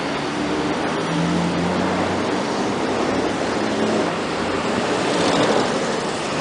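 Boeing 737-800's CFM56-7B jet engines on landing approach: a steady, rushing roar with a faint low hum in it.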